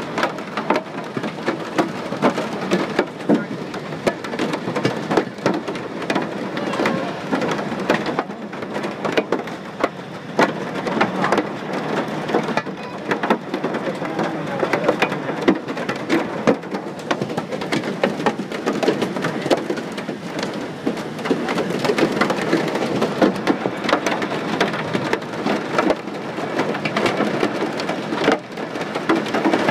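Hail and heavy rain pelting the aircraft's fuselage and window, heard from inside the cabin as a steady, dense clatter of impacts.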